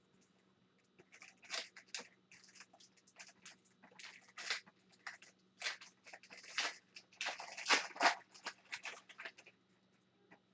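Foil trading card pack wrapper crinkling and tearing open, with cards being handled, in quick irregular crackles that are densest in the middle few seconds.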